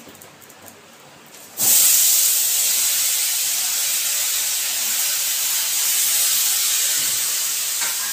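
Water and cut vegetables tipped into a hot, oiled kadai, starting a loud sizzling hiss about a second and a half in that carries on steadily and eases only slightly.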